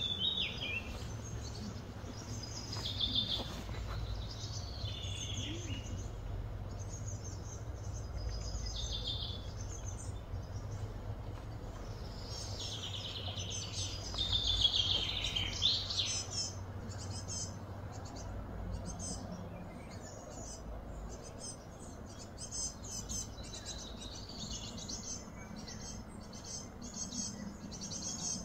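Outdoor ambience of small birds chirping and calling repeatedly in high, short phrases, over a low steady hum.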